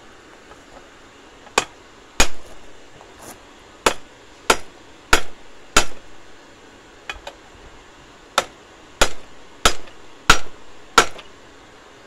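Blacksmith's hand hammer striking a red-hot metal bar on an anvil while forging: about a dozen blows at a steady pace of under two a second, each ringing briefly. There is a short pause midway with two light taps.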